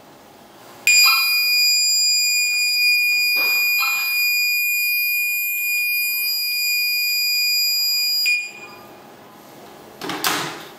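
Signal beacon's buzzer, set off through its telephone relay by an incoming call, sounding one steady high-pitched tone for about seven seconds and then cutting off. Near the end, a telephone handset knocks onto its wall cradle.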